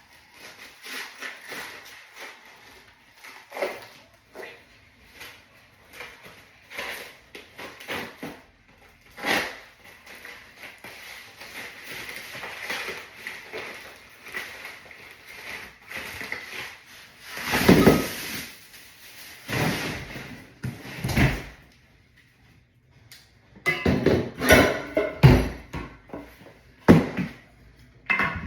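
Irregular knocks, clunks and clatter of furniture parts being handled and fitted together, with a heavier clunk past the middle and a quick run of knocks near the end.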